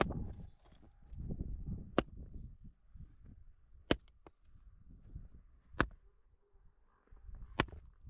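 Axe chopping into a woody clump: five sharp strikes, evenly spaced about two seconds apart, with crunching and rustling between.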